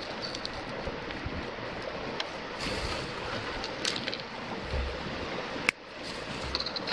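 Knife shaving and scraping a wooden stick in short strokes, over a steady rush of flowing river water; one sharp click a little after halfway.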